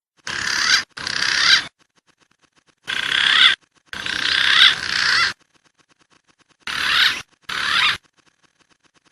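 Recorded wild pigeon calls on a bird-lure track: six short bursts of rising and falling calls in three pairs, each starting and stopping abruptly, with silence between.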